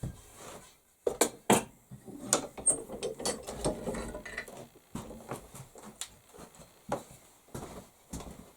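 Hand tools and metal parts being handled at the bench, a run of irregular clicks and knocks. Two sharp knocks come about a second in, then a quick rattling clatter, then scattered single clicks.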